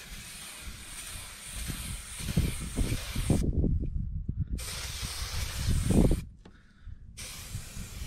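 Aerosol can of spray adhesive hissing in three long bursts, with short breaks about three and a half seconds in and again just after six seconds. Irregular low rumbling runs under the spraying in the middle, loudest about six seconds in.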